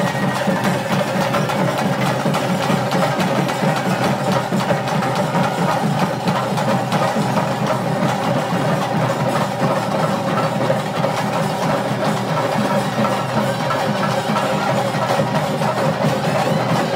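Traditional ritual music: drums beating continuously in a dense rhythm, with a steady sustained pipe tone held over them.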